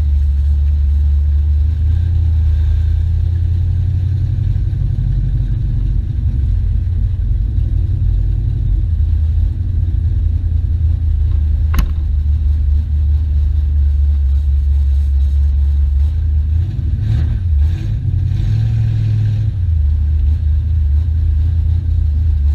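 Car engine running at low cruising speed, heard close from a camera on its hood: a steady, loud low rumble that wavers briefly around 17 to 19 seconds in. A single sharp click about 12 seconds in.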